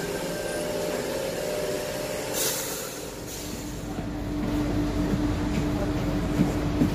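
Sydney Trains Tangara electric train standing at the platform. A short hiss of air comes about two and a half seconds in, then a steady hum over a low rumble starts up about three seconds in and holds.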